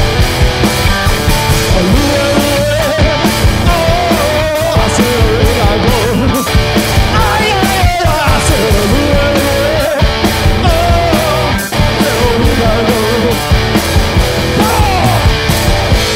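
Live garage-punk rock played by a duo: distorted electric guitar and a steady, driving drum beat, with a melody line bending up and down over them.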